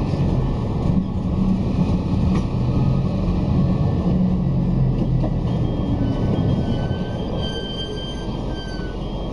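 Bus engine running and road noise heard inside the moving bus, a steady rumble with a low hum. In the second half a faint high-pitched whine comes in for a couple of seconds.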